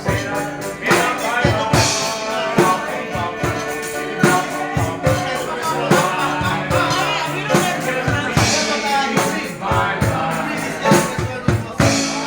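Live band music with singing over a steady beat of sharp percussion hits, a tambourine among them.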